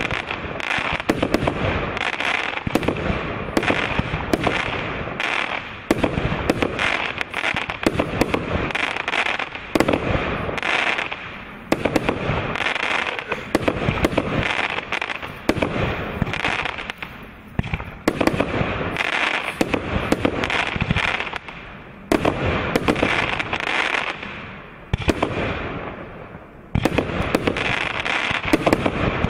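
SQS 19116 mixed-size multi-shot fireworks cake firing: a rapid, continuous string of sharp launch and burst reports, several a second, with a few short lulls between volleys.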